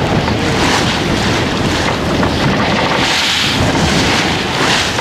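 Strong wind of about 25 to 30 knots buffeting the microphone over a choppy, whitecapped sea, with the rush of waves against the boat. The noise is loud and steady, with gusts rising and falling.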